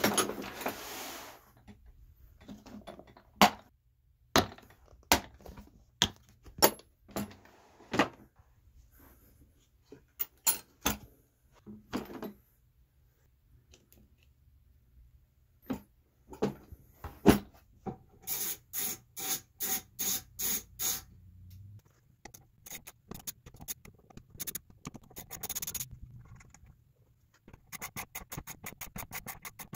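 Metal hand tools clinking and knocking as sockets are picked from a socket tray, then a socket ratchet clicking in runs while the bolts of an intake manifold are undone. The ratcheting goes at about three clicks a second around two-thirds of the way through and much faster near the end.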